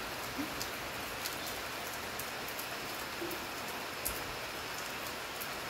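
Steady rain falling: an even hiss with scattered sharp taps of single drops striking a hard surface close by, one louder tap about four seconds in.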